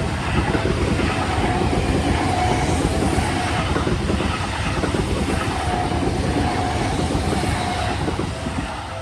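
Seibu 40000 series electric train passing over a level crossing, its wheels clattering over the rail joints, getting quieter near the end. The crossing's warning bell keeps ringing under the train noise.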